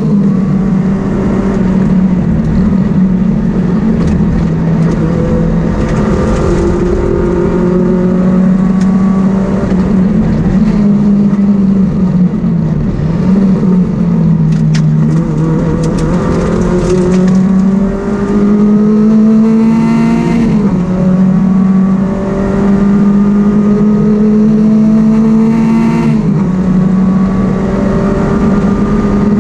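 Rally car engine heard from inside the cabin, driven hard. Its pitch climbs under acceleration and drops suddenly at gear changes, about twenty seconds in and again near twenty-six seconds.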